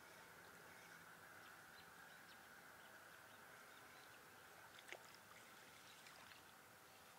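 Near silence: faint steady background hiss with a few small light clicks and one sharper click about five seconds in.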